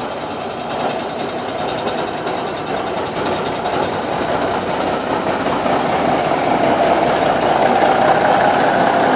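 Diesel engine of a Peterbilt semi tractor idling steadily, getting louder toward the end.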